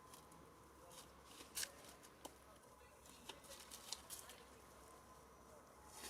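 Near silence: faint background with a few scattered soft clicks in the middle.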